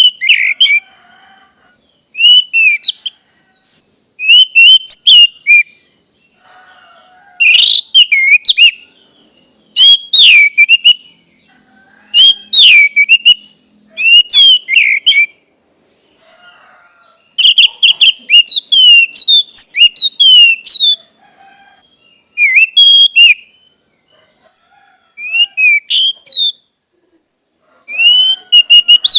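Orange-headed thrush singing: loud, clear whistled phrases with quick rising and falling pitch sweeps, in short bursts a second or two apart. A steady high hiss runs under the song and stops about 24 seconds in.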